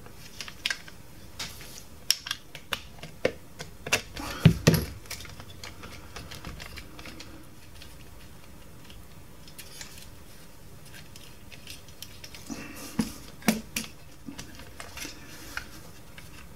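Small plastic clicks and knocks as a Duracell drumming bunny's plastic mechanism is handled and pressed together by hand. The loudest is a knock about four and a half seconds in, with a quiet stretch in the middle before more clicking near the end.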